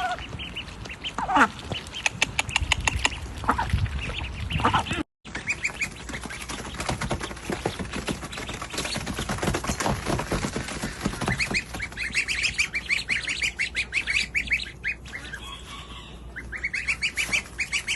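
Many birds calling over one another in rapid, harsh series of calls, cut off abruptly for a moment about five seconds in.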